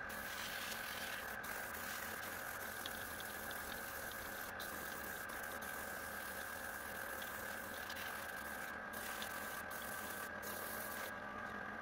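Airbrush spraying paint with a steady hiss that cuts off briefly several times as the trigger is let go, over a steady motor hum.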